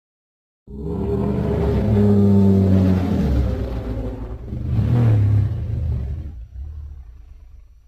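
Shin Godzilla monster roar sound effect: a deep, rumbling, pitched roar that starts suddenly, swells twice and slowly fades out.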